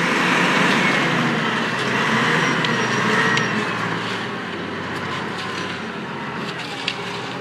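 A motor vehicle's engine running, loudest for the first few seconds and then easing off, with scattered clicks and knocks over it.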